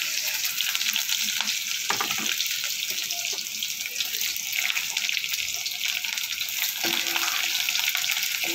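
Hot oil sizzling and crackling steadily in an aluminium kadai as freshly added chopped onions fry with whole spices. A couple of short knocks come about two seconds in and near the end, and a metal ladle stirs the pan near the end.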